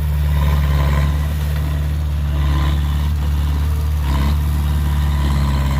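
Heavy diesel engine of earthmoving equipment running steadily with a low, even hum.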